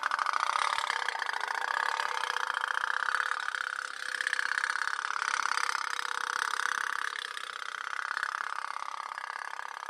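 Pop-pop boat, a small candle-heated toy steam boat, running with a rapid, even putt-putt that swells and eases slowly.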